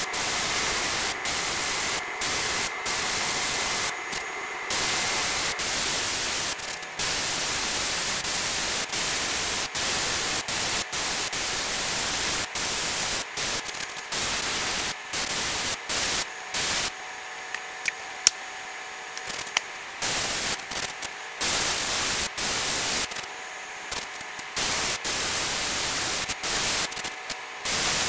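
Gravity-feed airbrush hissing as it sprays paint, in short bursts of about a second that start and stop with the trigger. There is a sharp click near the middle.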